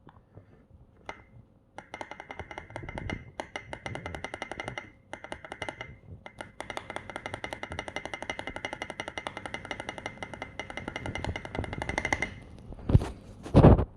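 6.25u spacebar on a mechanical keyboard being pressed over and over in quick succession, a rapid run of clacks with a brief pause partway through, then two louder thumps near the end.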